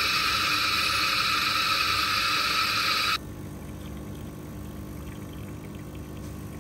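Electric coffee grinder running with a loud, steady grinding noise that cuts off sharply about three seconds in. Then a steady, quieter hum from an espresso machine's pump as a shot of espresso pours.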